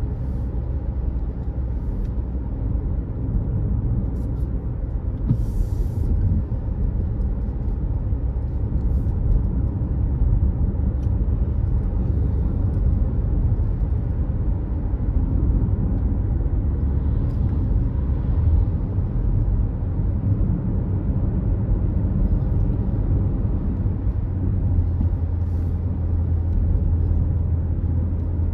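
A car driving along a road, with a steady low rumble of engine and tyres. A few faint ticks and one short hiss about five seconds in sit above it, and a steady low drone comes in near the end.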